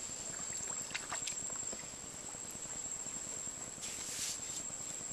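Light knocks and rustles of a man moving about and handling fishing tackle in a small aluminium boat, with a brief hissing rustle about four seconds in, over a steady high-pitched hum.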